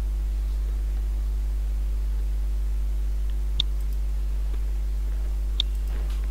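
Steady low electrical hum, with two sharp mouse clicks about two seconds apart, the first a little past halfway.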